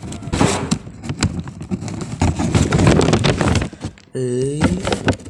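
Rustling of a brown paper bag and close handling of the phone against the microphone, full of scrapes and crackles, then a short sliding vocal sound from one of the boys about four seconds in.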